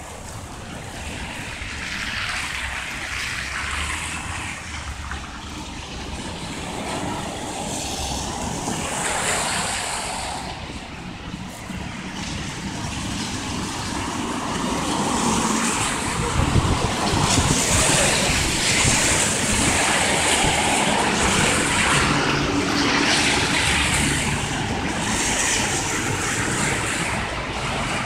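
Outdoor street noise: cars passing in swells, with wind buffeting the microphone. It grows louder about halfway through.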